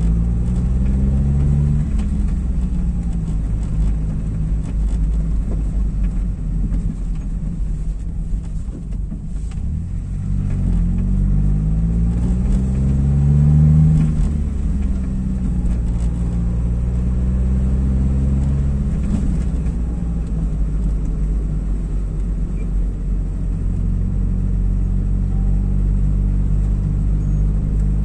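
Car engine and road rumble heard from inside the cabin while driving. The engine note rises and falls with speed: it eases off to its quietest about nine seconds in, climbs to its loudest about fourteen seconds in, then settles into a steady cruise.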